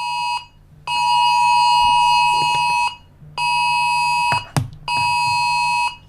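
Emergency-alert-style attention tone: a loud, buzzy electronic alarm tone sounding in pulses separated by half-second gaps, one cutting off just after the start and three more following, the first about two seconds long and the last two about a second each. A sharp click falls between the last two pulses.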